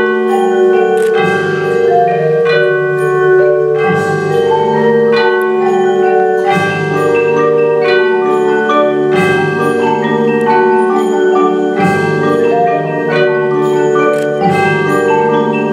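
Mallet percussion ensemble of marimbas and vibraphones playing a slow passage of held chords. A new chord is struck a little over once a second over a sustained bass line.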